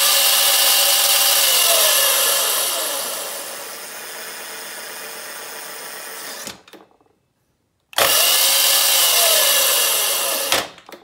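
Razor MX650 electric dirt bike's motor, overvolted to 48 V, spinning the raised rear wheel with a loud whine. The whine drops in pitch and level, runs on more quietly, then cuts off suddenly. After about a second's pause it spins up again and winds down near the end.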